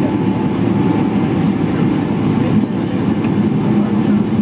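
Cabin noise of a Boeing 777-300ER taxiing, heard from a window seat: a steady low rumble from the GE90 engines at taxi power and the wheels rolling on the taxiway, with a faint steady hum.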